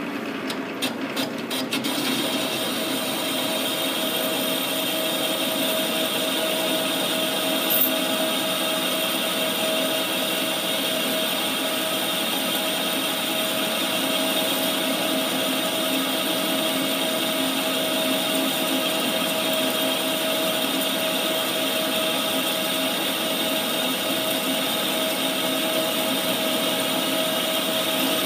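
Metal lathe taking a continuous turning cut on a spinning metal workpiece with a carbide insert tool: a steady cutting hiss over the machine's running whine, with a few sharp ticks of chips in the first couple of seconds.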